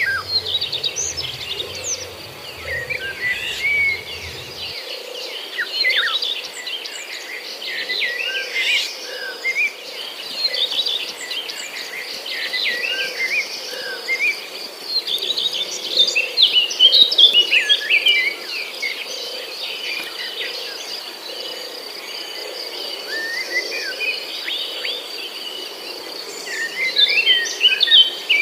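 Outdoor chorus of many songbirds chirping and singing over a steady high-pitched drone of insects such as crickets. The birdsong grows busier several times, most of all near the middle and toward the end.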